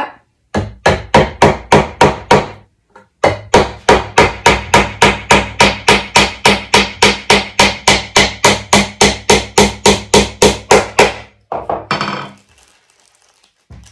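Hammer driving a nail into a wooden birdhouse roof: a short run of about half a dozen blows, a brief pause, then a long steady run of quick blows at about three or four a second, ending with a few softer taps.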